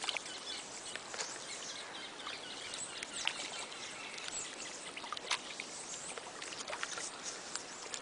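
Outdoor background noise with many faint, irregular light clicks and ticks scattered through it.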